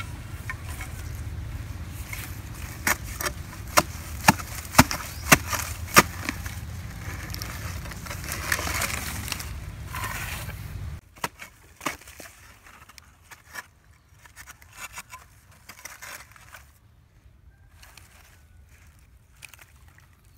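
Clay soil being dug and worked for wrapping a fish: a run of sharp strikes about half a second apart over a steady low rumble, then, after an abrupt drop in level, quieter scattered scrapes and crackles.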